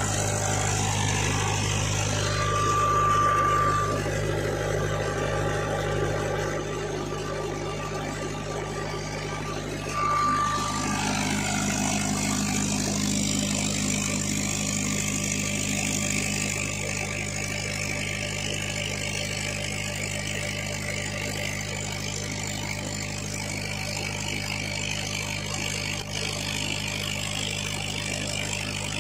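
Diesel tractor engine running steadily at a constant speed, driving a PTO water pump. A brief high-pitched tone comes through twice in the first third.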